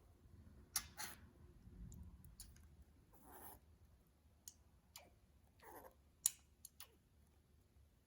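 Slime being handled, giving a scattered series of small, sharp clicks and pops, about eight in all, some with a short squelch.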